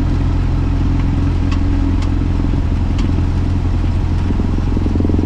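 Cessna 172's four-cylinder piston engine and propeller running steadily at low taxi power, heard from inside the cabin, with a few faint clicks.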